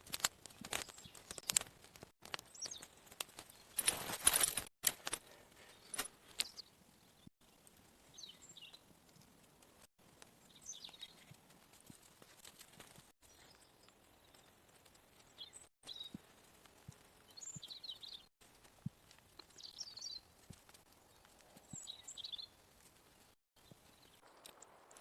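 Scattered knocks and clicks of outdoor handling work, loudest in a short noisy burst about four seconds in. Faint, short, high chirps follow in the second half.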